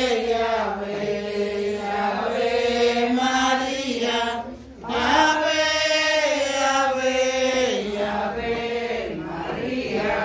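Voices singing a slow Catholic hymn to the Virgin Mary, with long held notes and a short pause for breath about four and a half seconds in.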